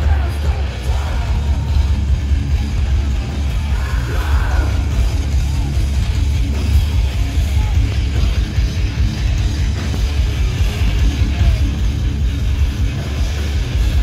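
Hardcore punk band playing live at full volume: distorted electric guitars, bass and drums with shouted vocals, heard from inside the crowd with a heavy, boomy low end.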